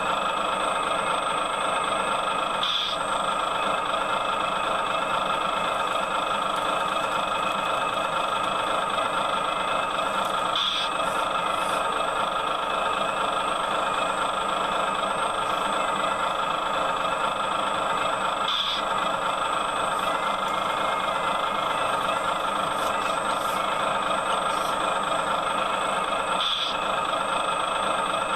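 Excavator's diesel engine running steadily, with a brief high-pitched blip about every eight seconds.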